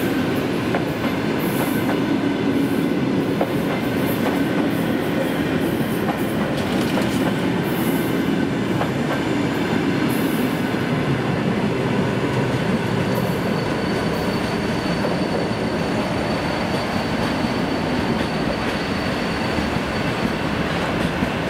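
Cars of an EP2DM DC electric train rolling past at close range as it pulls out: steady wheel-on-rail noise with a few sharp clicks from the wheels. A faint, steady high whine comes in about midway.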